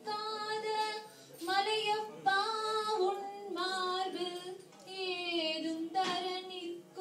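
A woman singing a Tamil devotional song in long held notes that glide and ornament between pitches, phrase by phrase, with short breaks for breath about a second in and again past the middle.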